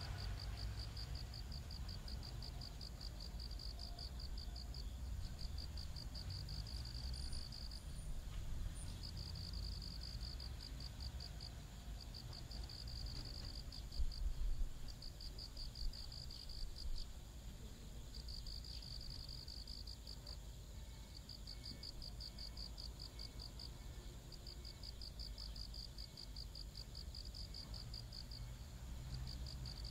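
Insect chirping: high, rapid pulses in runs of one to two seconds with short pauses between them, over a low steady rumble.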